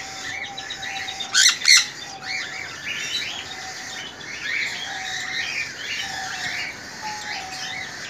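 Sun conures and other cage birds chirping steadily, with two loud shrill screeches in quick succession about a second and a half in.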